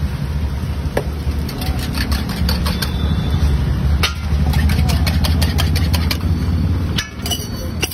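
Spoon clinking rapidly against a steel tumbler as eggs are beaten in it, in two runs of quick clicks with a few louder knocks near the end, over a loud, steady low rumble.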